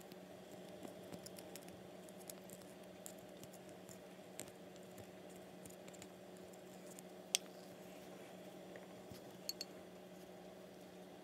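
Fingers handling a clear plastic candy mold while pressing soft candy dough into it: faint scattered plastic clicks and taps, with one sharper click about seven seconds in and a quick double click near the end, over a steady low hum.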